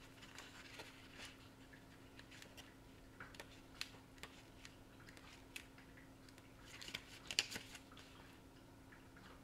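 Faint paper rustling and small clicks as a tarot deck's little guidebook is opened and its pages leafed through by hand, with a short cluster of sharper ticks about seven seconds in, over a faint steady hum.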